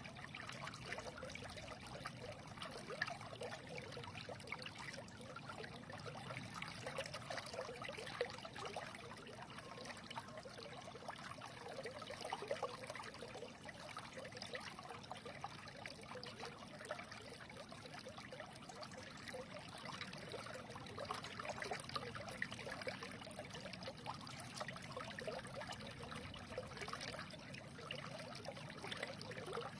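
Small stream trickling and babbling steadily over stones, with a dense flicker of bubbling splashes.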